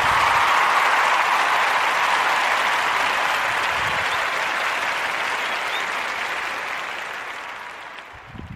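Crowd applause, a dense even clapping that holds steady and then fades out over the last couple of seconds.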